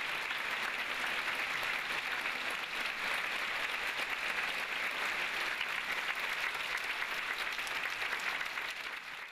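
Large concert-hall audience applauding, a steady, dense clapping that holds at an even level.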